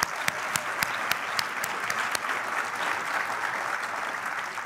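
Audience applauding: a dense, steady clatter of many hands clapping that begins to thin out near the end.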